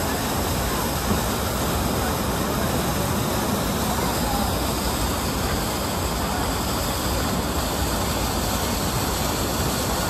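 Water rushing steadily through a river rapids ride's channel.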